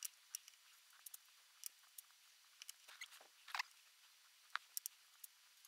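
Faint, irregular light clicks and taps of small pine pieces and a paintbrush handled on a workbench while wood dye is brushed on, with a short scrape a little past halfway.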